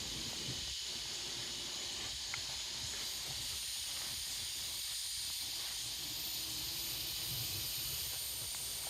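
Steady high-pitched hiss of outdoor ambience, with faint steady high tones joining about three seconds in.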